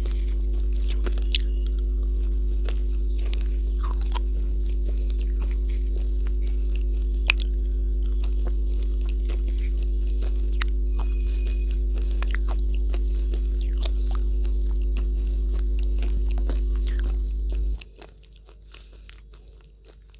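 Close-miked mouth sounds: biting, crunching and chewing, with small sharp clicks scattered throughout. Underneath is a loud, steady low electrical hum on the microphone line, the loudest sound, which cuts off suddenly near the end.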